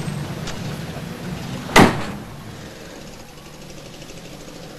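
A vehicle door slams shut once, a little under two seconds in, over the low rumble of a running vehicle and street traffic. The rumble is lower after the slam.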